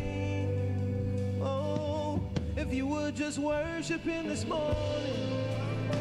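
Live worship band playing, with a man singing lead into a microphone over electric guitar, bass and drums, with cymbal strikes.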